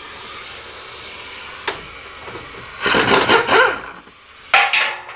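Hand ratchet with an extension and socket working a 10 mm bolt on the radiator mount, clicking in short bursts about three seconds in and again near the end.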